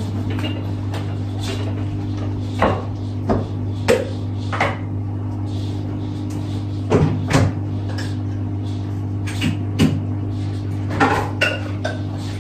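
Kitchen clatter: scattered knocks and clinks of dishes and a cupboard being handled, over a steady low hum.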